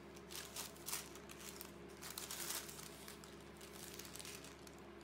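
Thin, see-through sheet of patterned collage paper rustling and crinkling as it is handled and positioned, busiest in the first three seconds and sparser after.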